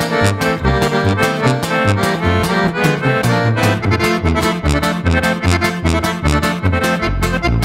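Norteño band playing an instrumental passage: accordion carrying the melody over a steady alternating bass line from tuba and tololoche (upright bass), with guitar strumming on the beat.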